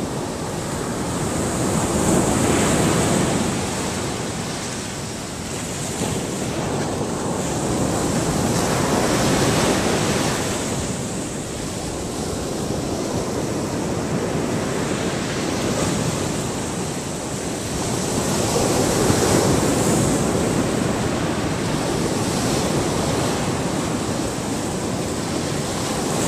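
Gulf beach surf washing ashore, rising and falling every several seconds, with wind on the microphone.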